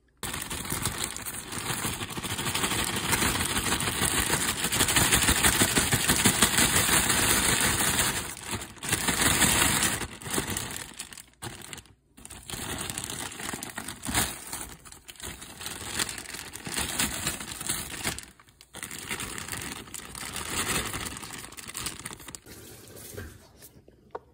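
Plastic marshmallow bag crinkling and rustling as it is handled and emptied into a pot. The sound is loud and crackly, with brief breaks, and tapers off near the end.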